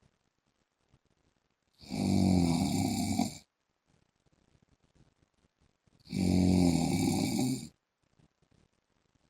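A man snoring loudly and regularly: two long snores about four seconds apart, each lasting about a second and a half, with near silence between them.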